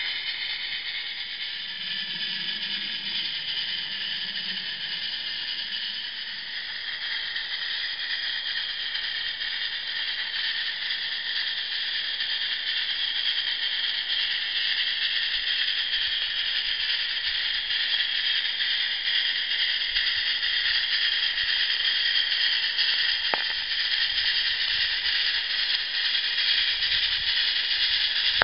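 Live-steam Accucraft Shay model locomotive hissing and chuffing through its chuffer exhaust as it works slowly under the load of a heavy train. It gets gradually louder as it comes closer.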